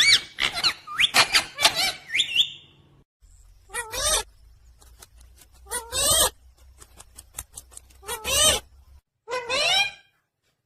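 Pet parrot chirping rapidly, then giving single calls about every two seconds, with faint clicks in between.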